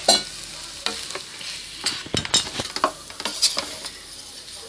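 A utensil stirring and scraping cooked rice in a pot, with irregular scrapes and light knocks against the pot.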